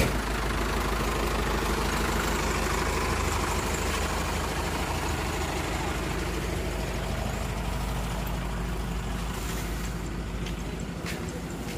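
A truck's engine idling steadily, growing slowly fainter.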